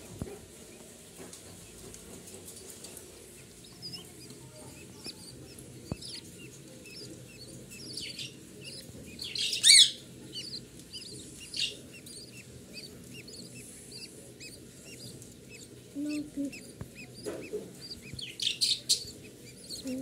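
Budgerigars cheeping: a steady run of short, high chirps, several a second, with a louder, harsher call about ten seconds in and a few more near the end.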